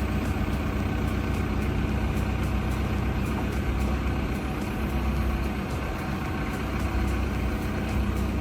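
Engine running steadily at constant speed, a continuous low mechanical hum.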